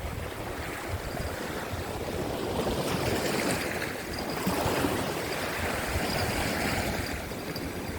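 Rough sea waves breaking and washing over coastal rocks, swelling about three seconds in and again around six seconds, with wind rumbling on the microphone.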